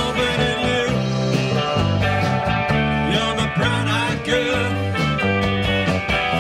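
Live rock band playing: electric guitars, bass guitar and drums, with a guitar bending notes over the beat.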